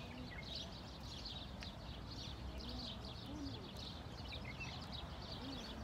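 Many small birds chirping continuously in the trees, a dense run of quick high chirps, with a few faint short low sounds beneath.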